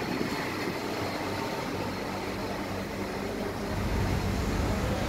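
Steady low mechanical hum with an even rush of air noise, the low hum growing a little louder about four seconds in.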